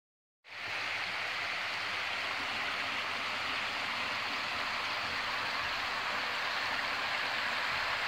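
Water of a shallow, rocky creek running over a bed of rounded stones: a steady hiss that starts about half a second in.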